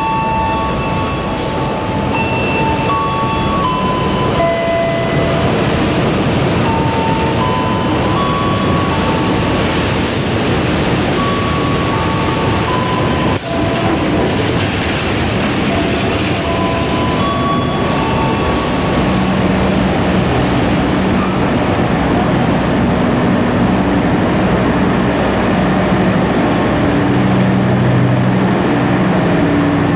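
Diesel locomotive hauling a passenger train rolling slowly into the platform, a steady rumble of engine and wheels on rail. Short high-pitched tones come and go in the first half, and a low engine hum grows stronger in the second half as the train passes close.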